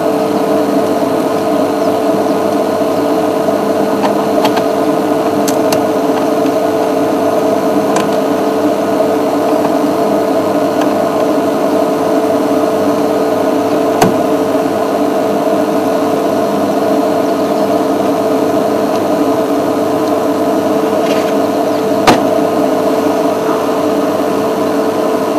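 A steady droning hum made of several held tones, with a sharp click about halfway through and another near the end.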